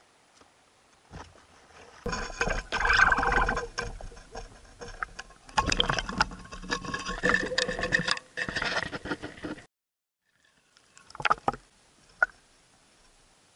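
Underwater camera being moved through the water: dense rattling, knocking and crackling on its housing for several seconds, which cuts off suddenly, then two short knocks near the end.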